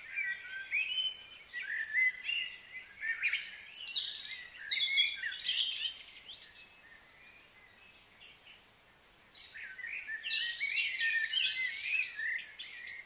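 Small birds chirping and calling in quick overlapping phrases. The calls thin out for a few seconds in the middle, then pick up again.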